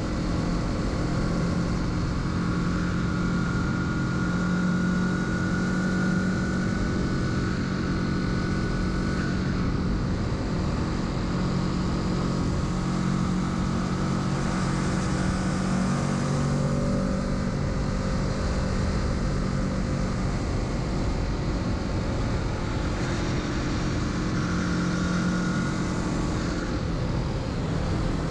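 Kawasaki Z650 motorcycle engine running under way, its pitch shifting a little up and down with the throttle, over a steady rush of wind noise.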